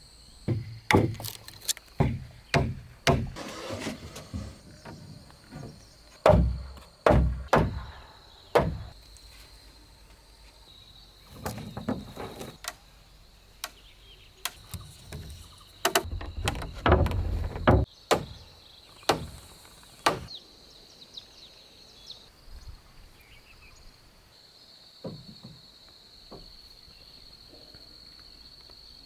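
Irregular series of sharp knocks and blows on wood, coming in clusters for most of the first twenty seconds and then only now and then. A steady high insect drone runs underneath.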